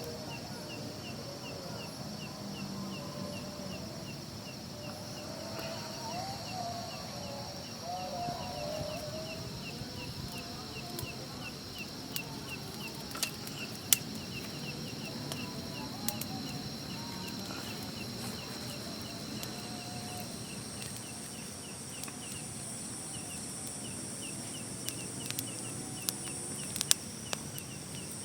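Outdoor hillside nature ambience: a steady high-pitched insect drone with a regular ticking chirp repeating several times a second throughout. Scattered sharp clicks come in the second half.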